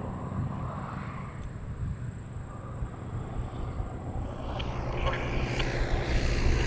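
Distant propeller aircraft engine droning, the AT-6 Texan's radial, dying away and then building again near the end, with a few faint clicks.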